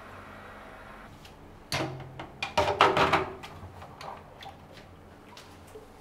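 Plastic clunks and clatter as the water tank of a cordless vacuum's mop attachment is handled and fitted, loudest about two to three seconds in, then a few light clicks.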